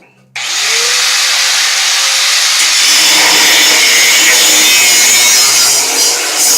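Angle grinder cutting through the wagon's metal, starting abruptly a moment in and then running steadily with a loud, hissing grind.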